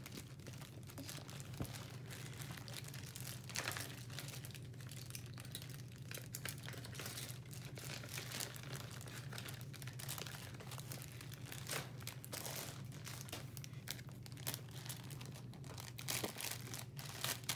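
Clear plastic packaging bag crinkling and rustling in irregular crackles as it is handled in the hands, over a steady low hum.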